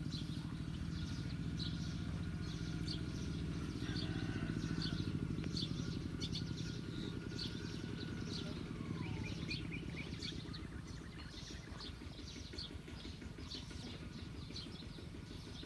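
An engine hums steadily and slowly fades over the second half, while a bird chirps over it about once a second.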